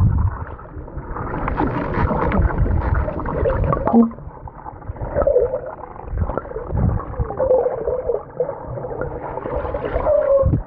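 Pool water heard from underwater as a dog paddles past the camera: muffled gurgling and sloshing with wavering hollow tones, and low dull thumps from its strokes.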